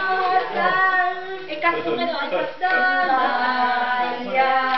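A group of voices, mostly women's, singing a song together, with held notes that change every second or so and a short dip in loudness about two and a half seconds in.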